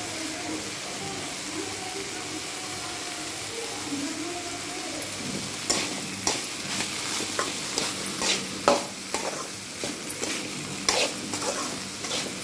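Diced beetroot sizzling in a metal kadai. From about halfway in, a metal spatula scrapes and clacks against the pan in irregular strokes as grated coconut is stirred through.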